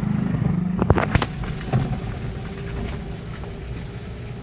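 Motorcycle engine running under load on a rough road, with a few sharp knocks about a second in.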